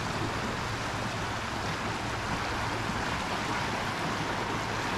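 Steady rushing of the floodwater-swollen French Broad River, an even roar of fast-moving water.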